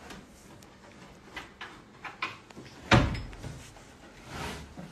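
Drawers of a wooden dresser being pulled open and pushed shut: a few light knocks, then one loud bang about three seconds in, with a softer rumble of sliding wood near the end.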